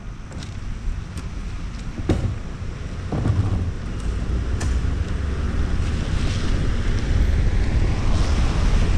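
Wind buffeting a car-mounted camera's microphone over the low rumble and hiss of the car driving on a wet street, growing louder about three seconds in, with a few sharp ticks in the first half.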